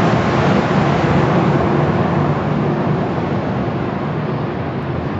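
Steady loud rushing noise with a low hum under it, from car wash machinery running, easing off slightly toward the end.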